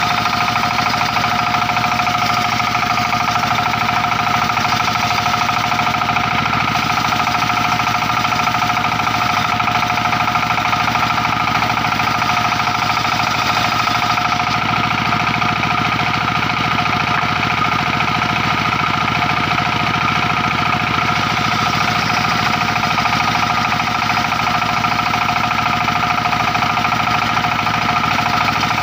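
Circular-saw sawmill running steadily, a constant machine whine with a fast mechanical pulse underneath.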